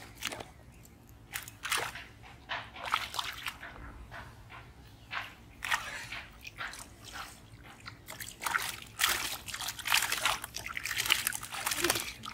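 Hands sloshing and splashing in shallow muddy pond water, groping for fish in and around a bamboo polo trap. Irregular splashes, sparse at first and busier and louder from about two-thirds of the way in.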